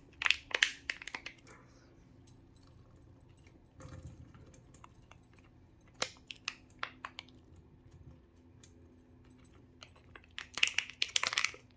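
Scattered light clicks and taps with a little crinkling, in small clusters near the start, midway and near the end, from hands handling a glass and small tools while working resin; a faint steady hum runs underneath.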